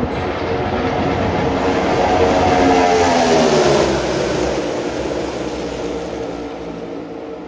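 A pack of NASCAR Cup Series stock cars passing at speed. Their V8 engines swell to a peak about three seconds in, then drop in pitch as the cars go by and fade away.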